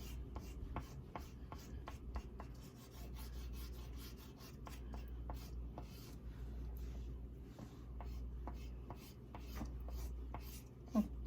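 Oil pastel stick scraping back and forth on sketchbook paper in short, quick strokes, about three a second, with brief pauses between runs.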